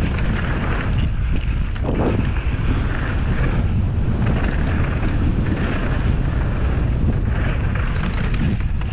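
Wind buffeting the microphone and mountain-bike tyres rolling fast over a dirt singletrack during a downhill run: a steady, rumbling rush with no let-up.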